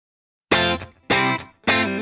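Background music: distorted guitar chords struck about every half second, starting half a second in.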